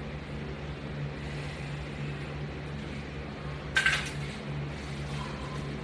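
A single short metallic clink about four seconds in, over a steady low hum.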